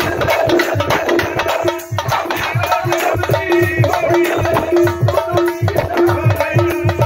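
Live folk dance music: barrel hand drums beat a fast, steady rhythm under a repeated held note and a wavering higher melody.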